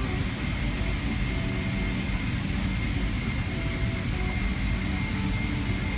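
Steady cabin noise aboard a Boeing 777-300ER: a low rumble of air-conditioning and aircraft systems with a faint, steady high whine over it.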